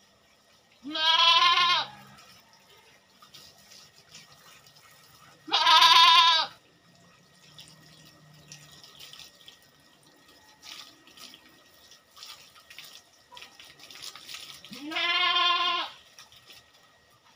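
A goat bleating three times, each call about a second long and quavering. Water from a garden hose runs faintly between the calls.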